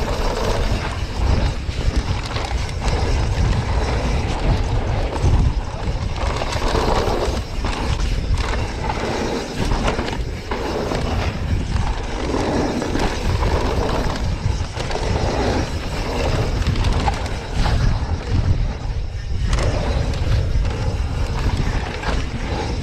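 Wind buffeting the camera microphone over the rolling noise of mountain bike tyres on a dry, rough dirt trail at speed, with frequent short rattles and knocks from the bike as it hits bumps.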